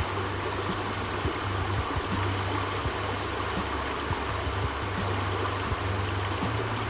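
Steady rush of running creek water, with a low rumble underneath.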